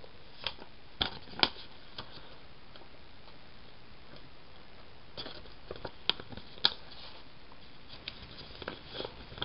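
Scattered light clicks and taps of hands handling paper sticker sheets over a steady hiss, a few at the start, a cluster in the middle and more near the end.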